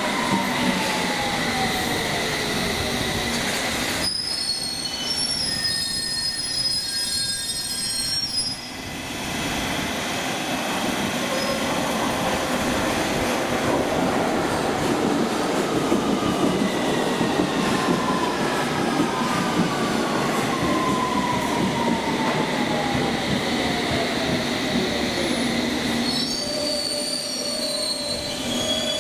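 Electric train braking into a station, its motor whine falling steadily in pitch, over a continuous rumble of wheels on rails. A high squeal from the wheels or brakes comes about four seconds in and again near the end.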